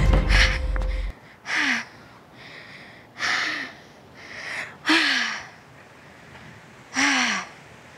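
A woman panting hard after running: four loud breaths out, roughly every one and a half to two seconds, each carrying a short falling note of her voice, with quieter breaths in between. Background music stops about a second in.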